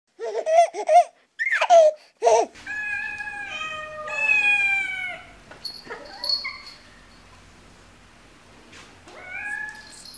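A very young kitten, eyes still closed, mewing over and over in thin, high cries. A few loud short squeals come in the first two seconds, then a string of calls, and one rising mew near the end.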